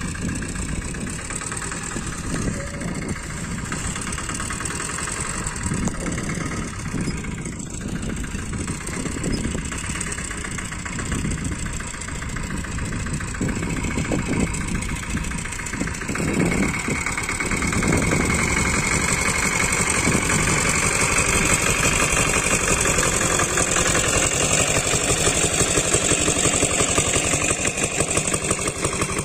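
Engine of a small homemade motorcycle-based farm tractor running steadily as it pulls a furrowing implement through tilled soil, getting louder about two-thirds of the way through.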